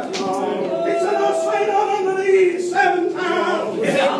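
Unaccompanied singing in long, held notes, gospel-style church singing without instruments.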